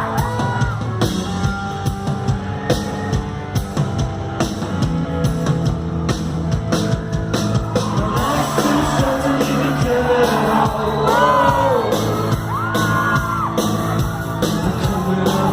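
Live rock band playing, with drums and bass under a voice singing, clearest in the second half, and fans yelling and whooping over the music.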